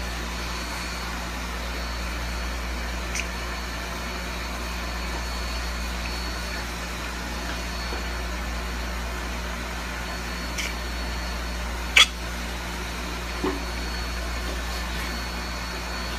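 Steady mechanical hum with a thin high whine, like a running fan or appliance, broken by a few short knocks, the loudest about twelve seconds in.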